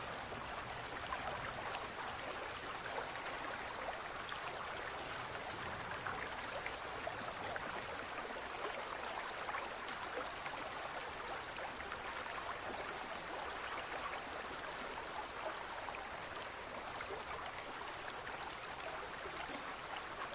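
Steady trickling and bubbling of water circulating in a large aquarium, as from its filter, with many tiny ticks of bursting bubbles.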